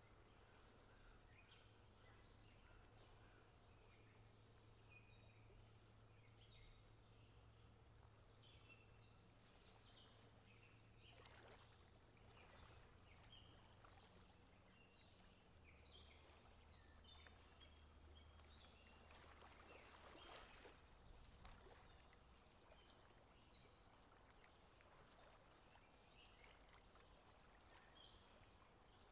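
Very faint outdoor ambience: many small birds chirping, with a low steady hum underneath and two brief swells of rushing noise near the middle.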